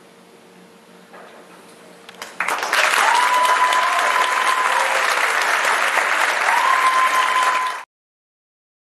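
Audience applauding, starting suddenly about two and a half seconds in after a quiet stretch, with a held high whistle sounding twice over the clapping. The applause cuts off abruptly near the end.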